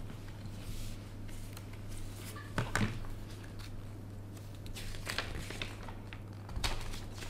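Paper and card handling: a few brief rustles and taps as a folded paper leaflet and card sleeve are lifted out of a smartphone box and unfolded, over a steady low hum.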